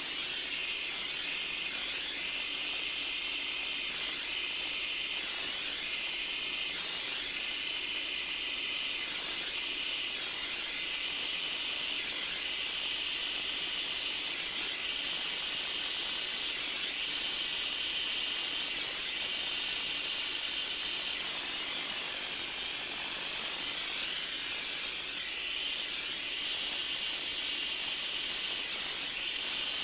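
Gas brazing torch burning with a steady hiss while aluminium brazing rod is melted into holes in an aluminium A/C radiator.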